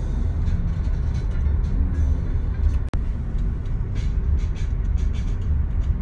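Low, steady rumble of a car driving, heard from inside the cabin, with music playing underneath. The sound cuts out for an instant about three seconds in.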